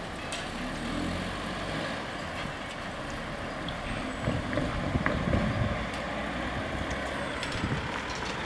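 A car's engine and tyres as it pulls away and drives over the level crossing, loudest about four to five and a half seconds in, over a steady low engine hum.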